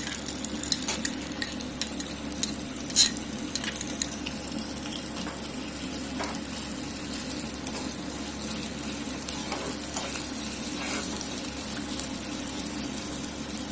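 Ginger frying in hot ghee in a pan: a steady sizzle, stirred with a spoon that clicks against the pan several times in the first few seconds, loudest about three seconds in.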